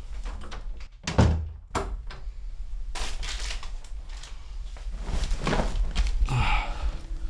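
A door thuds shut about a second in, with a second knock just after, then soft rustling and movement in a small room.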